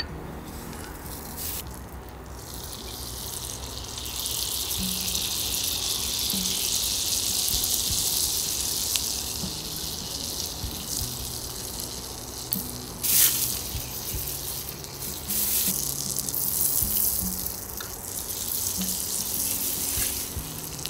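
Food sizzling in a hot pan, a steady high hiss that swells and fades with a few sharp crackles, over soft background music with low sustained notes.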